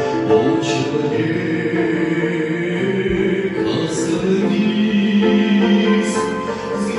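A choir singing a Russian evangelical hymn in sustained, held chords, with sung hissing consonants coming through now and then.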